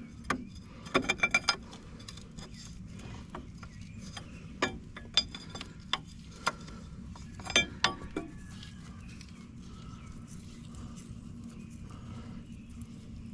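Sharp metal clicks and clinks of hand tools and hydraulic hose fittings being worked back on, in scattered groups over the first eight seconds, with a steady low hum underneath.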